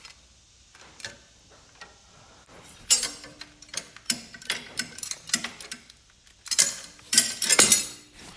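Metal clicks and knocks of a hydraulic hardline and its fittings being worked into place by hand, with tool-on-metal contact. A few scattered clicks at first, then a busy run of irregular clicks from about three seconds in, loudest near the end.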